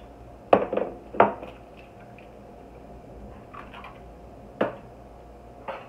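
Kitchen dishes and utensils knocking and clinking: two loud knocks with a short ring about half a second and a second in, a few light taps midway, and two more knocks near the end.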